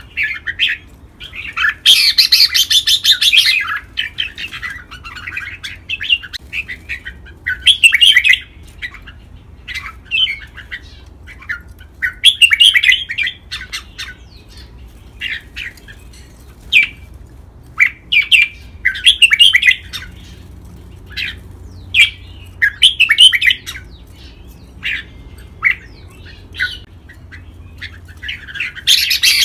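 Red-whiskered bulbuls singing: short, bright phrases of whistled and chattering notes, repeated every second or two, with the loudest bursts about two seconds in and again near the end.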